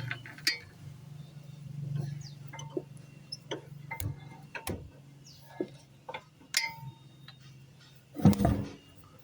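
Irregular metallic clicks and clinks of wheel lug bolts being handled and started into the hub as a wheel is fitted back on, some with a short ring, and a heavier thump about eight seconds in.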